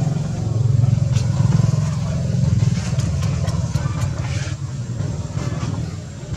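A vehicle engine running, a loud, steady low rumble.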